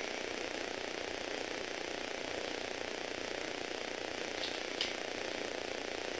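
Steady whir of an electric motor blowing air, with a short click about five seconds in.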